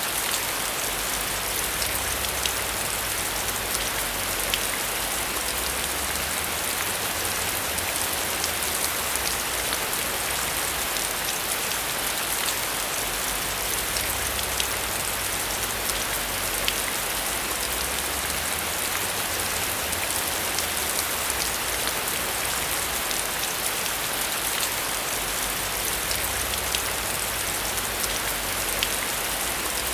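Heavy rain falling steadily, an even hiss with many separate drops ticking through it.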